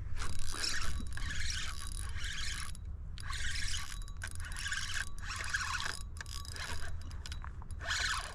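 Spinning fishing reel being cranked to retrieve a lure, a whirring rattle in three spurts with short pauses between them, over a steady low hum.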